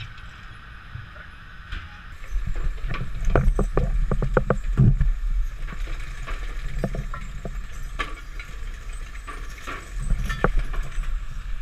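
Shrimp trawler's engine and deck machinery rumbling low as the trawl net is hauled up the stern ramp, with a quick run of clanks and rattles from the gear a few seconds in. The first couple of seconds are quieter, with only light knocks.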